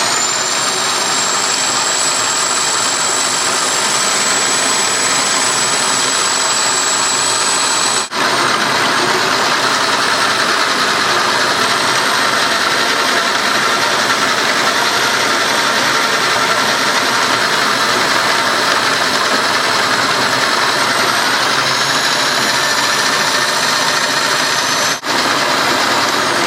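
Bosch variable-speed drill running at full speed, driving a Barley Crusher roller mill as it crushes a hopper-load of brewing grain: a steady high motor whine over a grinding noise. It drops out for an instant twice.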